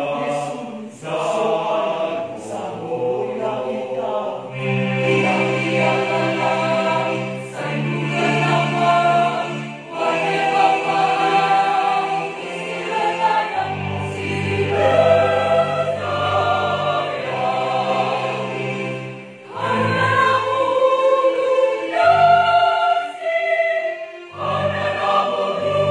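Mixed church choir of men's and women's voices singing a hymn in parts, holding chords that change every second or two.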